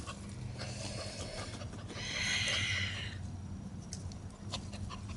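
Schipperke puppy digging in loose garden soil with its front paws: scattered scratches and scrapes, with a longer hissing scrape about two seconds in that lasts about a second.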